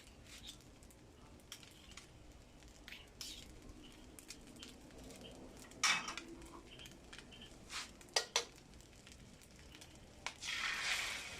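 A metal utensil clinking and scraping against a pan during frying, over a faint sizzle. There is a loud strike about six seconds in and two more just after eight seconds, and a louder hiss lasting about a second near the end.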